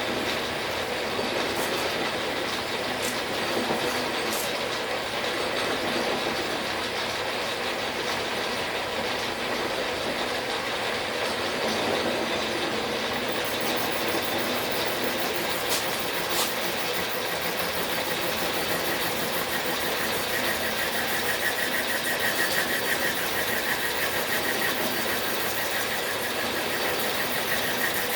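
Logan metal lathe running under power with its gear train turning, a steady mechanical running noise, during a thread-cutting pass. A steady higher tone joins about twenty seconds in.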